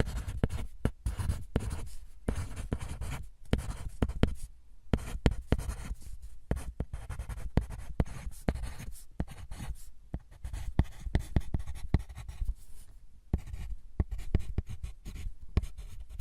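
Writing on paper by hand: continuous scratchy strokes with many small taps as the tip lifts and lands, pausing briefly a few times.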